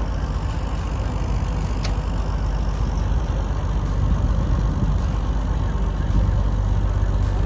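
River ferry's engine running steadily, a continuous low drone as the boat crosses.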